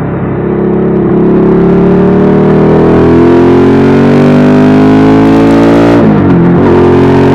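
Royal Enfield 650 parallel-twin motorcycle engine pulling under throttle, its revs climbing steadily for about five seconds. The revs then drop sharply about six seconds in and hold steady.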